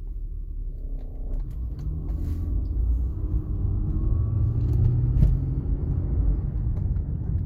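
2002 Lexus GS300's 3.0-litre inline-six running as the car pulls away and starts to roll, a low rumble that builds from about a second in with a faint rising engine note. A few light clicks are scattered through it.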